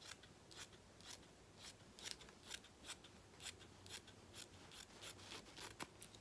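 Scissors snipping through fabric in a steady run of short, sharp cuts, about two a second, coming a little quicker near the end.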